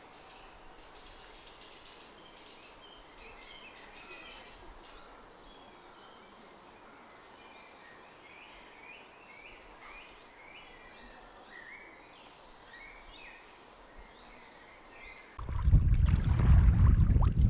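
Small songbirds singing: rows of fast, high chirps at first, then short song phrases. About two seconds before the end, a sudden loud rumble of wind buffeting the microphone takes over.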